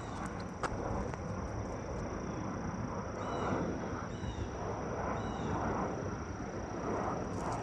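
Steady high-pitched insect chorus, with a bird giving a short chirp about once a second from about three seconds in, over footsteps.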